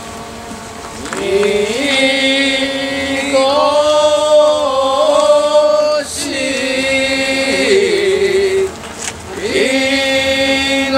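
A group of voices chanting in long held notes that step and glide in pitch, breaking off briefly about six seconds in and again near nine seconds.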